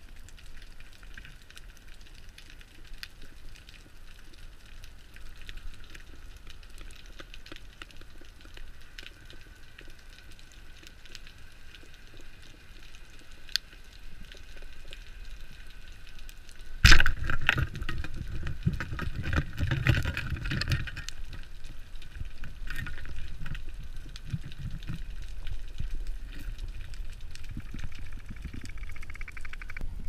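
Underwater sound through an action camera's waterproof housing: a steady hiss with scattered small clicks. About 17 seconds in, a sudden loud knock is followed by several seconds of louder low rumbling and knocking, which then settles to a softer rumble.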